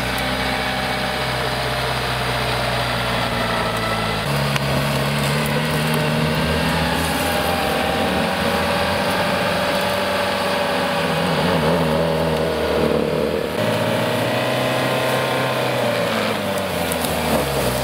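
Opel Frontera Sport's 2.2 DTi diesel engine running under load as the SUV works through mud. Its note shifts as the revs change about four seconds in and again about two-thirds of the way through.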